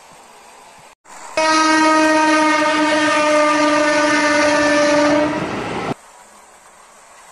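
Train horn sounding one long, steady blast of a single pitch for about four seconds, then cutting off sharply.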